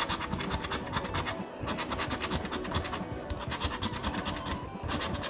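A scratch-off lottery ticket being scratched: rapid back-and-forth scraping strokes in several runs, each stopping briefly before the next.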